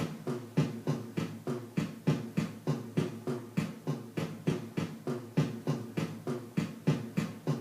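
Recorded dance music with a fast, steady drum beat of about four strokes a second over a low repeating pitched part.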